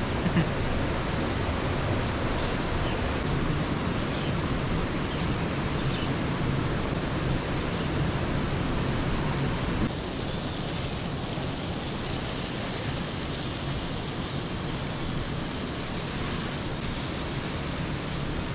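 Steady outdoor background noise: an even rushing hiss with no distinct events, which drops slightly and changes character about ten seconds in.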